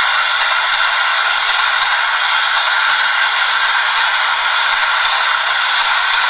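A loud, steady, even hiss of heavy noise on the recording, with no distinct clicks or rhythm from the model train's wheels.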